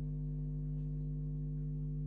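Steady electrical hum made of several low tones held at an even level, which cuts off suddenly at the very end.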